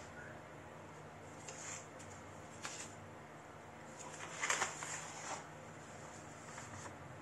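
Handling noises: a few short rustles and light clicks, the loudest cluster about halfway through, over a steady low hum.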